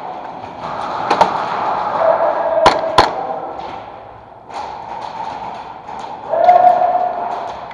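Two sharp cracks of airsoft fire close together near the middle, with a fainter knock about a second in, over a steady din of the indoor airsoft arena.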